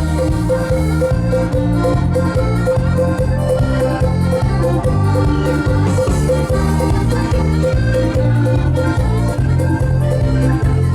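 Instrumental intro of a dance song: an accordion melody over a steady, pounding bass beat. The music starts abruptly at the beginning.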